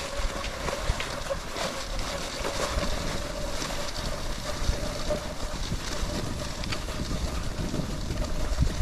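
Cross-country skis sliding along groomed classic tracks in snow, with wind rushing over the microphone: a steady hiss with a faint steady tone and a few scattered ticks.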